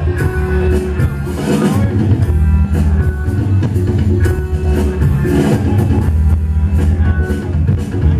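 Loud music with a steady drum beat, heavy bass and guitar.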